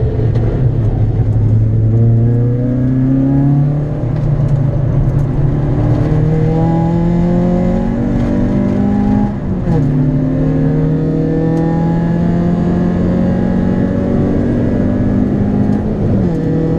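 Citroën Saxo VTS's 1.6-litre eight-valve four-cylinder engine pulling hard under load, heard from inside the cabin: the revs climb steadily, with gear changes that briefly drop the pitch about 4 s and about 10 s in, and again near the end.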